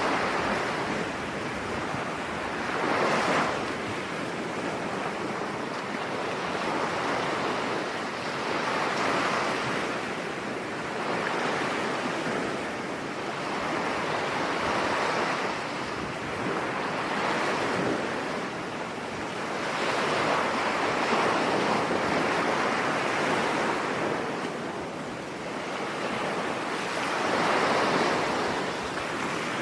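Sea waves washing in a steady rush that swells and ebbs every few seconds.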